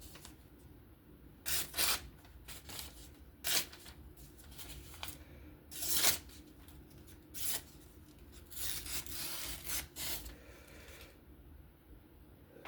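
Steel knife blade being honed: short, separate scraping strokes of the edge across a hone, with a longer run of strokes about two thirds of the way through, touching up a dulled or slightly chipped edge.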